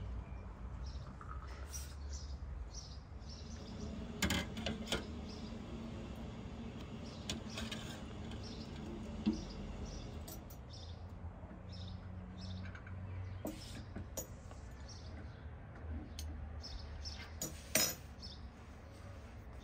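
Glass tea glasses, china saucers and teaspoons clinking as tea is poured from a samovar and served: a string of light, separate clinks, the loudest near the end. Birds chirp in the background.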